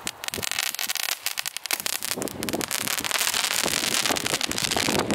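A party popper packed with crackling balls and other category 1 fireworks going off: a dense run of rapid crackles and small pops that grows thicker and louder about two seconds in.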